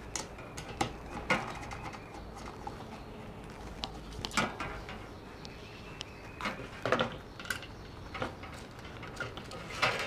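Scattered light metallic clicks and taps of a screwdriver and spanner working the screws that hold the blades to a ceiling fan's metal motor housing, with a few louder knocks near the middle and at the end.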